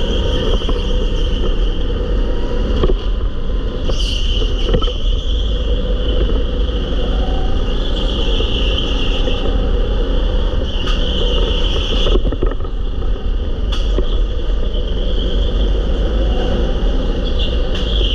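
Go-kart running flat out, heard from on board: a steady, loud drone and rumble that swells and eases through the corners, with a few sharp knocks along the way.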